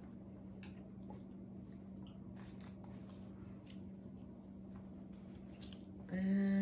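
Faint rustling and handling of a cotton t-shirt as it is pulled from a box and unfolded, over a low steady hum. Near the end, a woman's voice starts a held hum.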